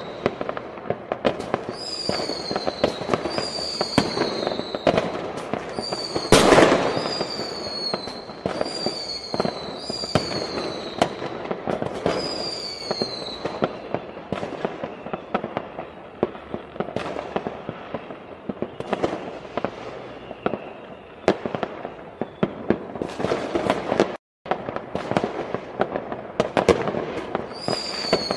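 Many fireworks going off at once across a town: a dense, continuous stream of pops, cracks and crackling, with a run of repeated falling whistles in the first half and one louder bang about six and a half seconds in. The sound cuts out for a moment about 24 seconds in.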